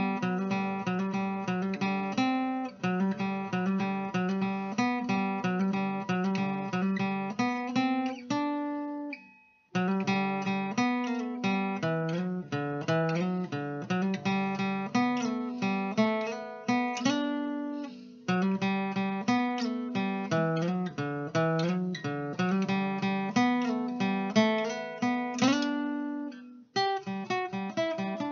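Acoustic guitar music, a steady run of plucked and strummed notes that fades out briefly about nine seconds in, then picks up again.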